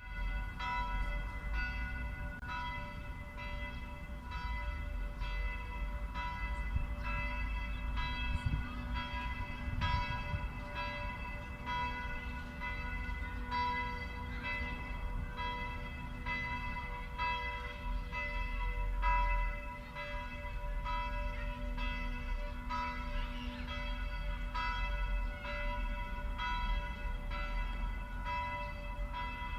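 Catholic church bells ringing, struck over and over about one and a half times a second, each stroke's tone ringing on into the next.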